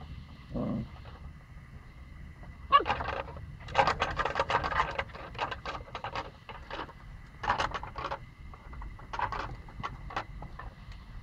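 Pomsky puppies nosing and pawing about at a wooden fence close to the microphone: irregular bursts of scratching, rustling and snuffling, loudest in clusters about three to five seconds in and again near eight and nine seconds.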